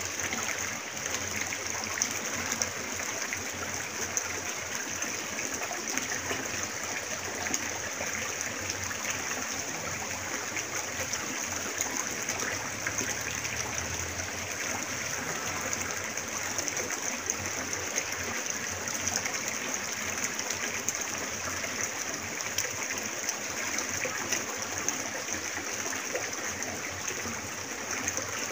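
A small rocky river flowing, a steady rush and trickle of water over stones.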